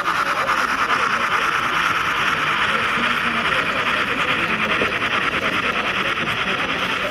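H0-scale model freight train, a steam locomotive hauling tank wagons, running along the track close by. It makes a steady running noise with a fast, even ticking.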